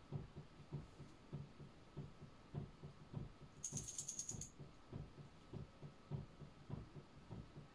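Faint soft knocks, about three a second and somewhat uneven, with a short high rattle of quick clicks about three and a half seconds in that lasts under a second.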